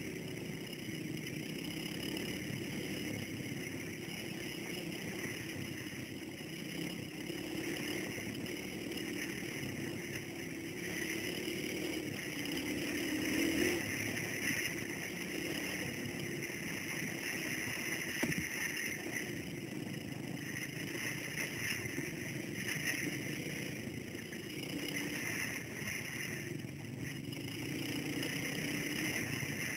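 Dirt bike engine running continuously as the bike is ridden along a dirt track, heard from a camera on the rider, its pitch rising and falling a little with the throttle.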